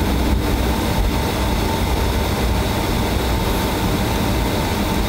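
Cabin noise of a Boeing 757 rolling along the runway after landing: a steady low rumble of the wheels and engines, with a faint steady whine above it.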